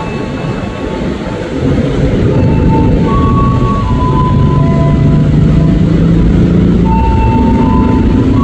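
JR 205-series electric commuter train pulling out of the platform: a low rumble grows louder about a second and a half in, and the traction motors hum with tones that step up in pitch as it gathers speed.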